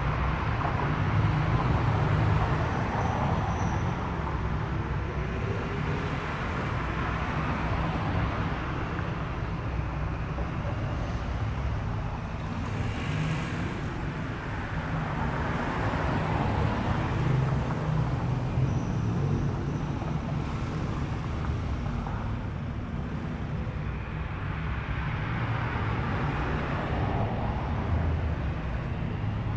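Car engines and exhausts running as cars drive slowly past one after another, the sound swelling and fading as each one goes by.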